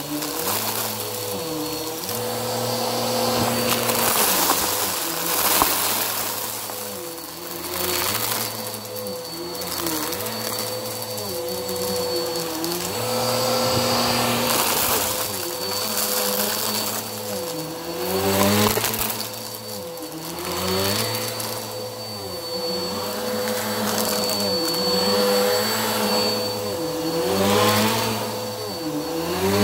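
Bissell PowerForce upright vacuum cleaner running as it is pushed back and forth through thick fluff and small plastic beads on carpet; its motor whine dips and recovers with each stroke, about every two seconds, over a crackle of beads being sucked up.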